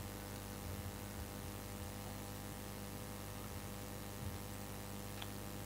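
Steady low electrical mains hum with a faint hiss, from the sound-recording chain.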